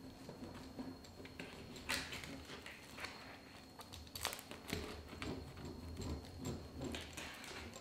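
Metal pizza-cutter wheel rolling through a pizza in a cardboard box: a series of short crunches and scrapes as the wheel cuts the crust and runs against the cardboard beneath.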